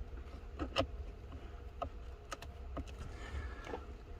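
Irregular light clicks and taps of a small wrench working the fasteners of a blend door actuator, a few per second, over a steady low hum.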